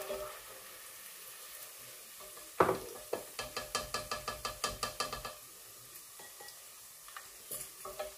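Hot oil sizzling in a handi pot as fried onions are lifted out with a slotted spatula. About two and a half seconds in the utensil knocks against the pot, then taps it quickly about a dozen times with a ringing metallic clink, and there are a few softer clicks near the end.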